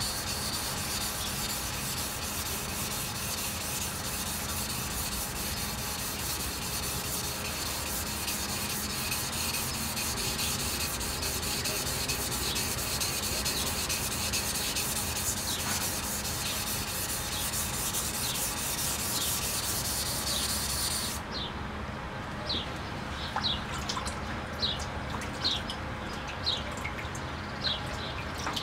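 Steel knife blade, a cheap chisel-ground single-bevel knife, being stroked back and forth on a wet sharpening stone: a steady rasping scrape. The scraping stops about three quarters of the way through, and short high chirps, like a bird's, follow repeatedly.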